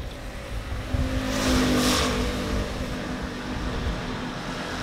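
A car passing on wet pavement: engine hum and tyre hiss swell to a peak about two seconds in, then ease off.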